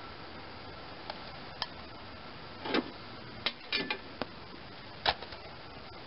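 A handful of irregular sharp metal clicks and clunks from hands working on the snowblower's shift linkage and transmission cover. The loudest clunk comes about five seconds in.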